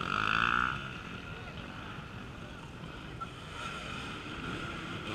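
Off-road racing motorcycle engines revving, with a rising rev about four seconds in. A short, steady high tone at the very start is the loudest sound.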